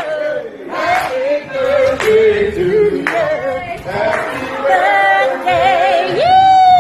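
Several voices singing together without instruments, with a sharp hit about once a second keeping time. About six seconds in, one long note rises steeply and then slides slowly down like a siren.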